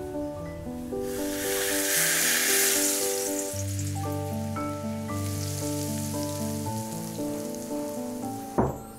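Hot oil sizzling as it hits ground chili and sesame seeds in a bowl. The sizzle is strongest for about two seconds, then dies to a fainter hiss while the mix is stirred, all over background music. A sharp knock comes near the end.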